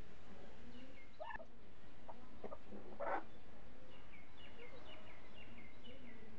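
Domestic chickens clucking, with a brief louder call about three seconds in and a run of short, high, falling chirps in the second half.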